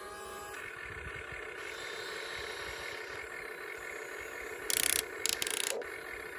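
Small electric motors and gearboxes of a toy remote control excavator whining steadily as it is driven, with two brief harsh scraping bursts about five seconds in.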